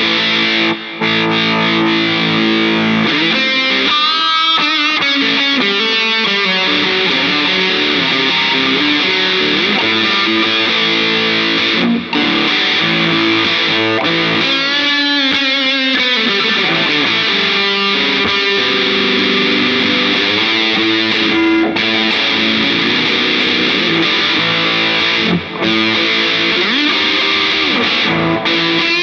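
Vintage Les Paul electric guitar played with overdrive through an amp simulator aiming at a Marshall-style tone. It plays sustained notes and chords with string bends and vibrato, with a few brief breaks between phrases.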